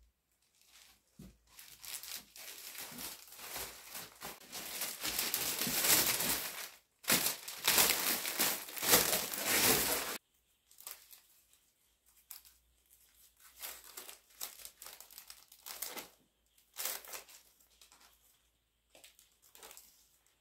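Cellophane and tissue-paper wrapping crinkling as it is gathered and scrunched around the stems of a hand-tied flower bouquet. The crinkling is loud and continuous for the first half and stops abruptly about ten seconds in. After that it gives way to softer, intermittent rustles.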